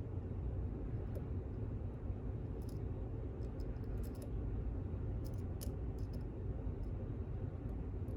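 Faint, scattered clicks and scrapes of a flag pick probing the pins inside an LOB pin-in-pin lock, over a steady low background hum.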